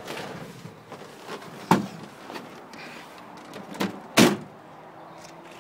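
The Santana PS10's diesel engine dies away as it is switched off, then a couple of clicks and knocks as the cab door is opened. About four seconds in, the door is slammed shut, the loudest sound here.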